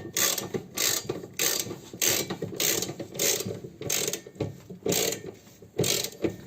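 Ratchet wrench clicking in repeated back-and-forth strokes, a little under two a second, as the Nissan Qashqai's wiper-arm nuts are run down onto their spindles.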